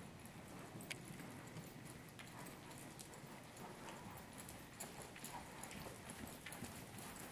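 Faint hoofbeats of a Hanoverian mare moving over the sand footing of an indoor arena, over a steady hiss.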